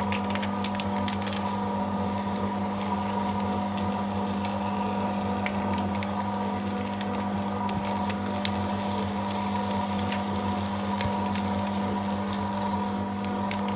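Paper shredder running steadily, its motor humming as it cuts a continuous strip of thermal-print ECG paper. Scattered faint ticks and crackles come from the paper being cut.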